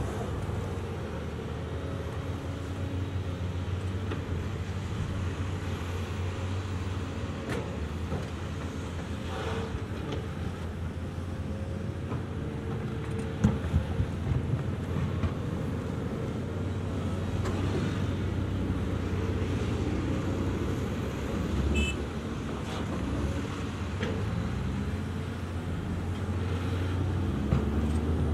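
Diesel engines of two Caterpillar hydraulic excavators (a Cat 336 and a Cat 345) running steadily under load while digging and swinging, with a wavering hydraulic whine over the engine hum. A few sharp knocks about halfway through as a bucket load of dirt is dumped into an articulated haul truck.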